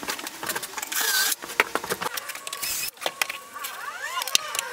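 Drill boring pocket holes through a pocket-hole jig in two short bursts of cutting, with clicks and knocks as the jig and its clamp are handled. Near the end the drill's whine slides down and up in pitch.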